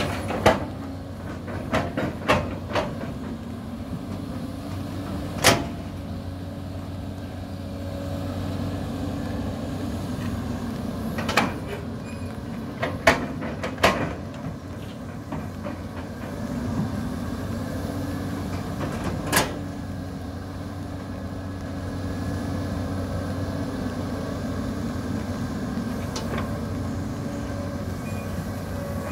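Caterpillar 320D long-reach excavator's diesel engine running steadily under digging load, with sharp clanks and knocks every few seconds from the bucket and arm working stony soil.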